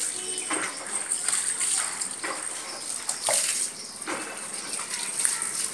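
Water splashing and sloshing in a plastic basin and over a wet dog's coat while the dog is being bathed, in several separate splashes.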